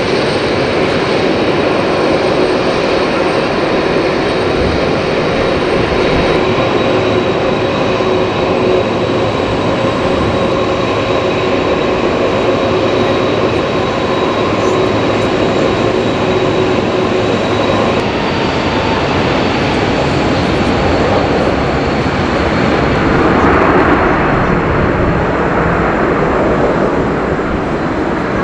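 Boeing 747-400 freighter's four jet engines running at taxi power: a steady rumble and roar with a high, steady whine. The roar swells for a moment a few seconds before the end, as the jet exhaust turns toward the listener.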